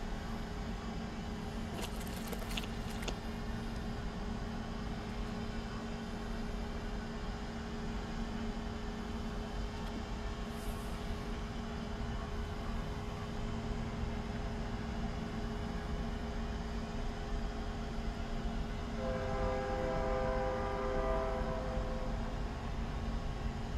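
Distant horn of an approaching freight train's lead GE ES44DC diesel locomotive, sounding one long chord-like blast starting about nineteen seconds in and lasting about three seconds, with another blast beginning right at the end. Under it is a steady low rumble.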